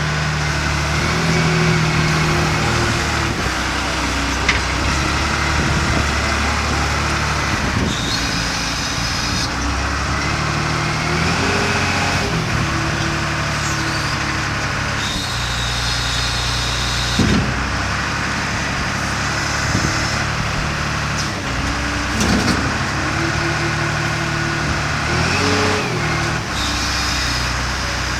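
Komatsu WA300-3 wheel loader's diesel engine running, its pitch rising and falling several times as it revs up and down. Brief higher whines and a few knocks come in over it.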